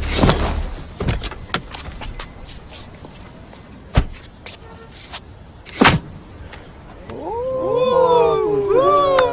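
A few sharp thumps and knocks of someone climbing and jumping onto a car's bonnet, the loudest about four and six seconds in. From about seven seconds a loud, high, wavering pitched sound comes in and holds to the end.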